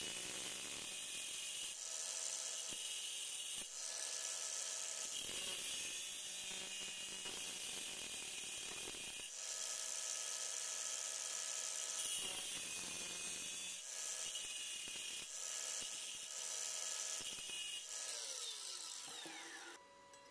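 Angle grinder with a thin cut-off wheel cutting slots into a steel disc, a high-pitched grinding hiss that comes and goes in strength as the wheel bites the metal. Near the end the grinder is let off and spins down with a falling whine.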